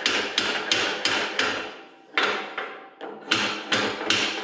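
Steel hammer tapping a setworks gear along a steel shaft over its Woodruff key: a run of sharp, ringing metal-on-metal taps about three a second, with two short pauses in the middle.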